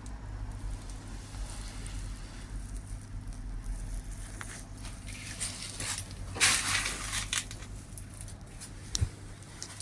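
Workshop handling noises: scattered light rustles and clicks over a low steady hum, a longer scraping rush about six and a half seconds in, and a sharp knock near the end.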